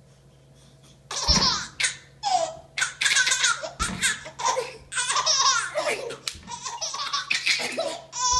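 A baby laughing hard in quick, high-pitched bursts. The laughter starts about a second in and goes on in repeated peals.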